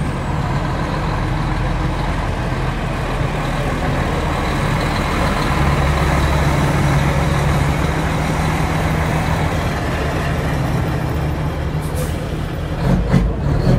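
Mack Superliner semi truck's diesel engine running steadily as the truck and its loaded lowboy trailer roll slowly past, swelling a little as the cab goes by. A few short sharp noises come near the end.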